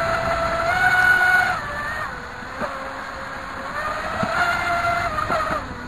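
RC jet ski's water-cooled brushless inrunner motor and jet drive whining over the rush of water. The pitch climbs with throttle about a second in, falls back, then climbs again about four seconds in before dropping near the end, with a few light knocks.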